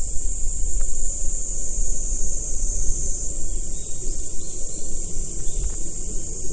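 A chorus of insects: a continuous high-pitched buzzing that holds steady throughout, over a steady low rumble.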